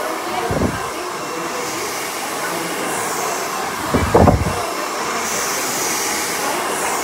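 Handheld hair dryer blowing steadily, with two brief low rumbles about half a second in and around four seconds.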